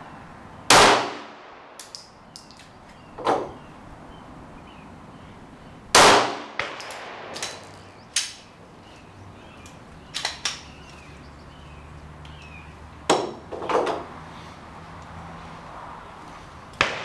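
Glock 17 9mm pistol fired slowly: two loud sharp shots about five seconds apart, each with a ringing tail. Fainter bangs and small clicks fall between and after them.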